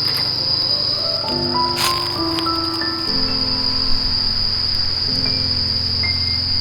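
Insects keep up a steady high-pitched drone, with background music of slow, held notes underneath. A single brief tap comes about two seconds in.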